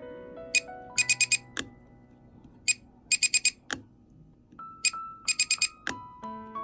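Background music: sustained piano-like notes under a repeating chime-like figure of bright high ticks, one tick and then a quick run of four, coming round about every two seconds.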